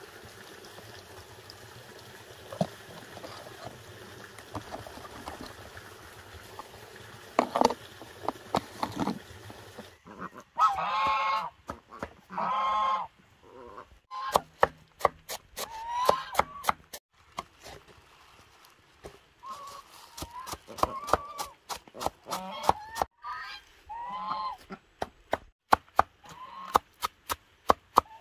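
Faint trickling water and a few light knocks as a plastic sprayer tank's filter is rinsed, then, after about ten seconds, domestic geese honking again and again. From about the middle on, a fast run of sharp knife chops on chopped greens goes on under the honking.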